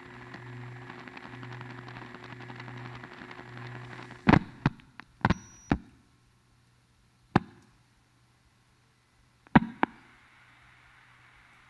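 Playback of a 1975 recording of a telephone line during blue-box phreaking: a steady line hum and hiss, then a run of sharp clicks on the line about four seconds in with a brief high tone among them, and a few more single clicks later as the line goes quiet.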